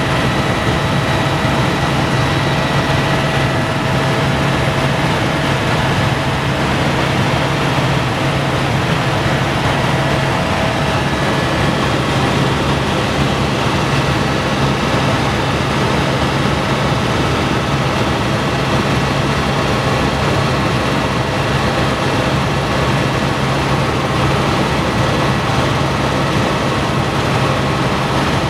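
Helicopter in cruise flight heard from inside the cabin: a loud, steady drone with a low hum and thin, faint high whining tones, unchanging throughout.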